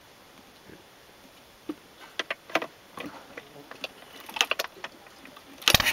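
Scattered light clicks and knocks from hands working the controls of a Wickström W2 two-cylinder marine engine, then a sudden loud burst of noise near the end.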